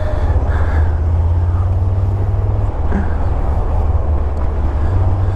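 A 1982 Jeep CJ7's 5.7-litre V8 engine running steadily while driving, its deep low drone mixed with wind and road noise. The engine note shifts briefly about three seconds in.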